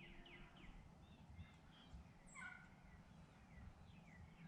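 Faint bird calls: runs of short, high chirps sliding downward, several a second, with one stronger call about two seconds in.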